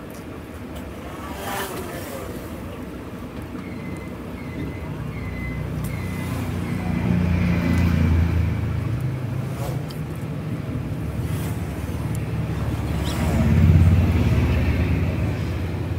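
Low rumble of motor vehicles passing, swelling twice, the second time near the end, with scattered sharp clicks and knocks of plastic parts being handled and fitted back together.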